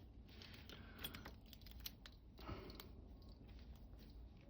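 Near silence with a few faint, scattered small clicks of a padlock and lock-picking tools being handled.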